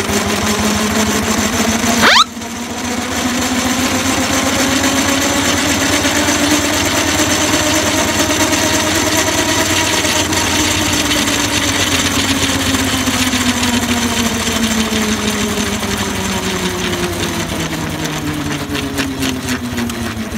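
A 4-inch scale Burrell steam road locomotive running on the move: a busy mechanical clatter under a pitched hum that slowly rises and then falls in pitch. A brief, sharp rising squeal about two seconds in is the loudest moment.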